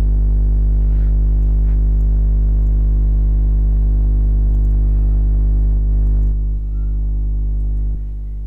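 Steady electrical mains hum with a buzzy stack of overtones. It drops a little in level twice near the end.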